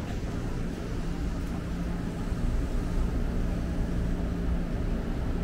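Electric commuter train at a station platform: a steady low rumble with an even, constant hum.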